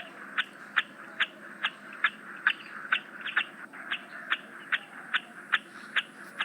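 Domestic chick peeping: short, high peeps repeated evenly, about two and a half a second.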